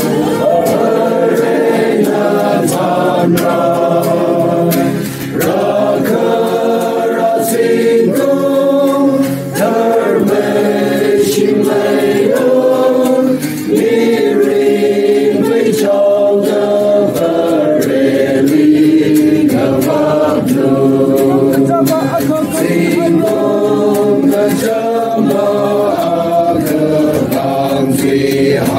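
A large crowd singing a hymn together without instruments, many voices blended, with short breaks between lines.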